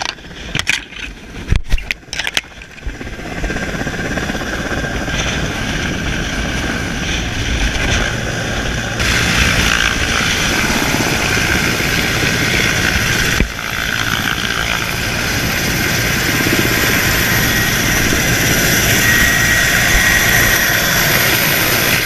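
Helicopter hovering close overhead: steady turbine and rotor noise with downwash buffeting the microphone, getting louder from about nine seconds in. A few sharp knocks in the first few seconds.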